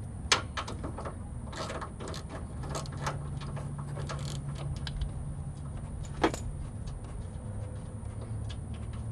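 Scattered small clicks and rattles of a plastic wiring connector and harness being handled while an airbag crash sensor is fitted, the sharpest click about six seconds in, over a low steady hum.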